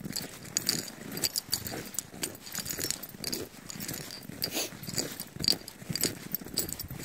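Footsteps crunching in deep snow at a walking pace, a crisp crunch every half second or so.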